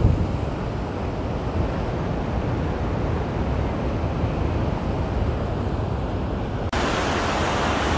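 Steady rushing roar of Niagara Falls, water pouring over the brink onto the rocks below. About 7 s in it cuts abruptly to a brighter, hissier rush of fast river water.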